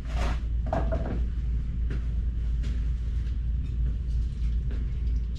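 A few short rustles and clicks of hand handling over a steady low rumble.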